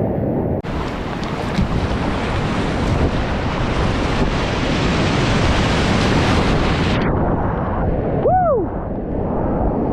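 River whitewater rushing and splashing in a steady, loud wash. The sound brightens abruptly about half a second in and dulls again about seven seconds in. A short rising-and-falling call sounds near the end.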